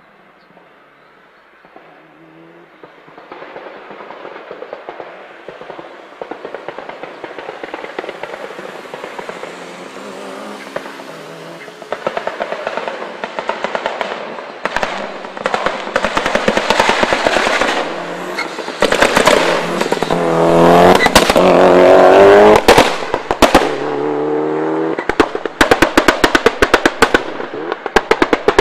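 Mitsubishi Lancer Evolution's turbocharged four-cylinder engine coming closer, rising from faint to loud, while its exhaust lets off sharp pops and bangs like gunfire. The bangs start about halfway through and grow into a fast string of rapid cracks near the end.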